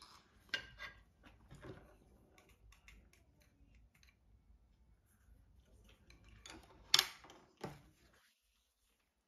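Chopsticks and a stoneware spoon clicking and clinking against ceramic dishes. A few sharp clinks come in the first two seconds. The loudest clink comes about seven seconds in, with another just after it, as tableware is set down on the tray.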